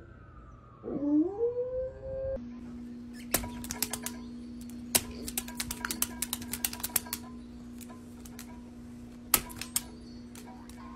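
A golden retriever howling, the pitch bending up and down, for the first two seconds or so. Then a dog's claws tap rapidly and unevenly on a tablet's glass screen as it paws at a game, over a steady low hum.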